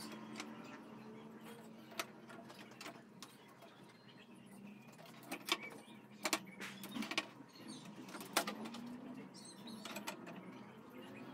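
Scattered sharp clicks and knocks of tools and wooden swing slats being handled on a wooden workbench, with a cluster of louder knocks about halfway through. A faint low steady hum runs under the first few seconds.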